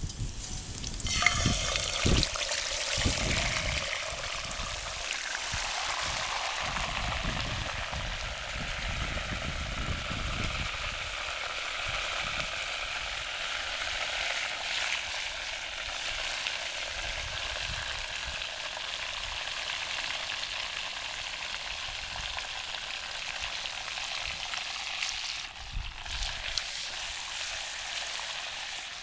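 Pork roast searing in a hot 5-quart cast-iron Dutch oven over a campfire. The sizzle starts loudly about a second in, with a few knocks, then settles into a steady sizzle.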